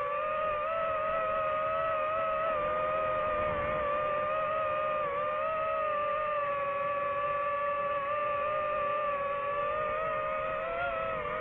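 DJI FPV quadcopter's motors and propellers whining steadily, the pitch wavering slightly up and down with throttle.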